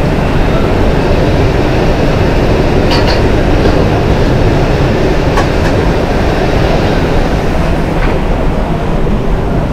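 Cordless battery blower running steadily, blowing air onto the glowing wood embers of a hearth grill to fan the fire, with a couple of sharp ticks partway through.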